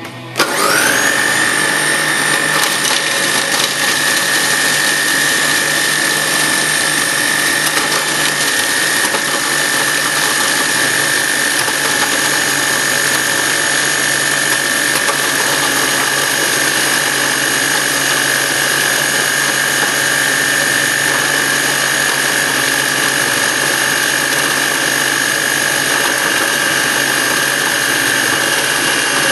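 Food processor motor starting up and running steadily, grinding biscuits into crumbs as they are dropped through the feed tube. Its whine rises quickly just after it starts, then holds one steady pitch.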